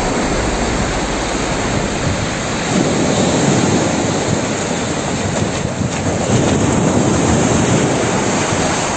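Waves washing on the shore with wind rushing over the microphone: a loud, steady rush that swells twice.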